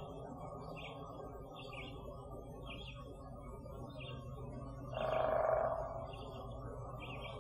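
A bird's short chirp repeating about once a second over steady low background noise. About five seconds in, a louder, harsher call or sound lasts about a second.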